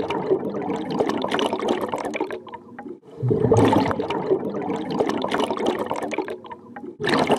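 Air bubbles rushing and gurgling underwater, in surges of about three seconds each with a short break between them; a new surge starts about three seconds in and another near the end.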